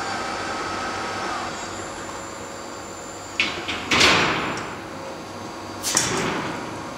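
An overhead vacuum lifter setting a 5 mm steel sheet down on the slatted table of a laser cutting machine: a steady machine hum with a whine in the first second or so, then sharp metallic bangs and clatter, one about three and a half seconds in, the loudest about four seconds in, and another near six seconds.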